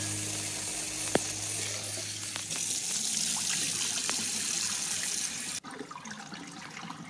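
Kitchen tap water running into a steel bowl of rice being rinsed, and the cloudy rinse water poured off into the sink. The steady rush of water cuts off suddenly about five and a half seconds in, leaving a faint trickle.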